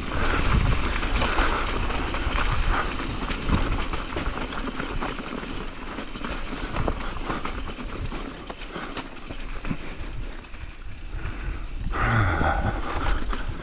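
Specialized Kenevo SL electric mountain bike rattling down a rough, rocky gravel trail: tyres crunching over loose rock, with a constant run of small knocks from the bike and a low rumble.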